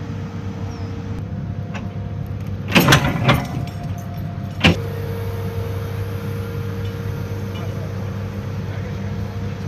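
Hydraulic excavator's diesel engine idling with a steady hum. A quick cluster of knocks comes about three seconds in, and a single sharp knock just under five seconds in.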